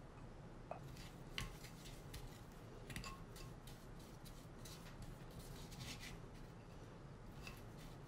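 Faint scraping and light clicks of a small stirrer working a thick herb paste in a wooden bowl, a few louder scrapes among them.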